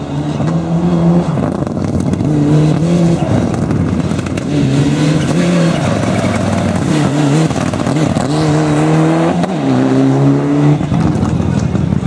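Mitsubishi Lancer Evolution rally car's turbocharged four-cylinder engine, loud at close range. Its note climbs and drops again about six or seven times as it shifts through the gears and lifts off for corners, with the highest climbs near the end.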